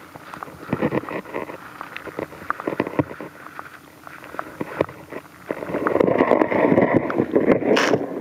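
Handling noise from an underwater camera housing being lowered on a line through a hole in sea ice: irregular clicks and knocks, then about two-thirds of the way through a louder stretch of scraping and rubbing that lasts a couple of seconds and ends just before the close.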